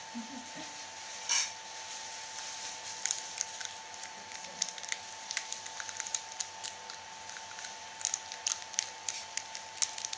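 Thin plastic bags crinkling and crackling in quick, irregular bursts as they are opened and the chana chaat is shaken out onto plates, with one louder rustle about a second in. A steady faint whine sits underneath.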